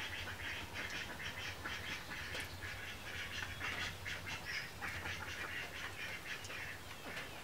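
An animal calling in a fast, even run of short calls, about five a second, over a low steady hum.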